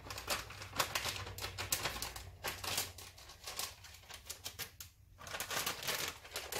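Plastic bag of cheese crinkling and rustling as the cheese is shaken out, in quick irregular crackles with a brief lull about five seconds in.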